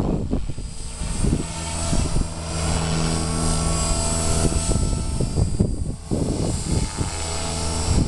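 Walkera V450 electric RC helicopter's motor and rotor blades whining steadily in flight, louder through the middle as it passes close. Gusts of wind hit the microphone near the start and the end.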